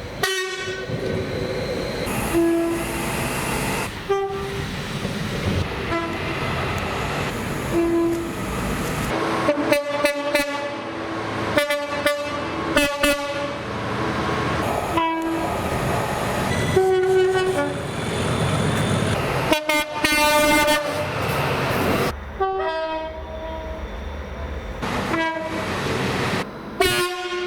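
Train horns sounding one after another in quick succession, a mix of short blasts and longer holds at changing pitches, with abrupt cuts from one horn to the next. The running noise of the trains lies underneath.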